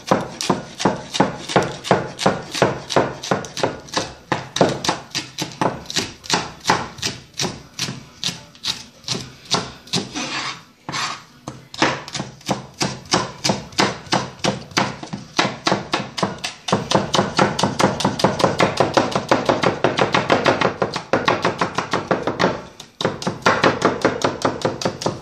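Chef's knife chopping green onions on a plastic cutting board: a steady run of quick knife strokes, about three a second, that turns faster and denser in the second half, with two short pauses.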